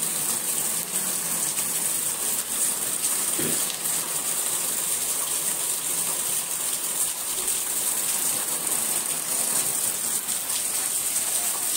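Heavy rain falling steadily: an even rushing hiss at a constant level.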